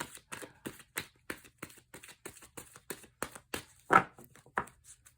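Tarot cards being shuffled by hand: a quick, uneven run of card flicks and slaps, about five a second, with a louder snap about four seconds in.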